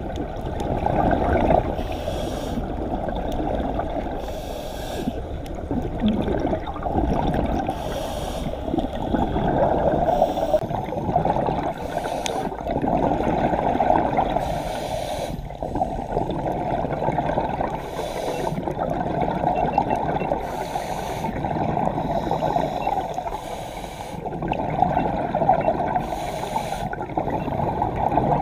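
A scuba diver breathing through a regulator, heard muffled underwater: hissing inhalations and bubbling exhalations that surge every few seconds.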